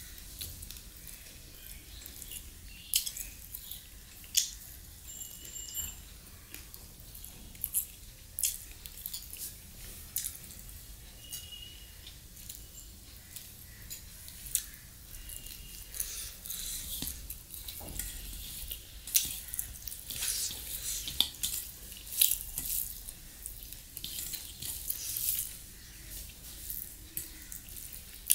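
Wet squishing and sticky clicks of fingers mixing rice with chicken curry in a stainless steel bowl, along with the smacking and chewing sounds of eating by hand. The clicks come at an irregular pace and grow busier over the second half.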